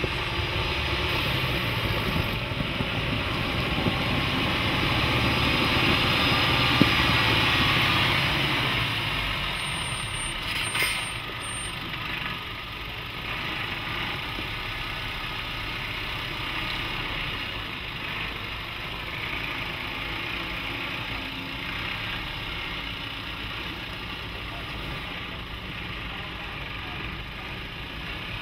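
Mercedes-Benz Unimog U 5023's four-cylinder diesel engine running at low speed as the truck crawls over off-road terrain, swelling louder about six to eight seconds in, then settling to a steadier, quieter run.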